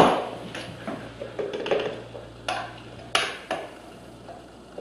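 Spoon knocking, clinking and scraping against a glass bowl while sticky date caramel is scooped out. The loudest knock comes right at the start, followed by about half a dozen lighter clinks and scrapes.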